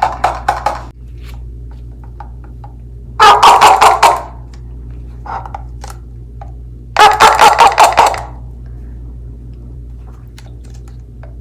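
Homemade cup-and-string chicken noisemaker: a string threaded through a plastic cup is scraped with a fingernail through a wet tissue, and the cup amplifies the string's vibration into rapid, loud, clucking squawks. They come in bursts of about a second, three main ones and a short one in between.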